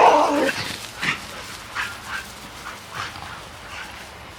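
Excited dogs whining and yipping: one loud cry at the start, then a string of short, high whines every half second or so.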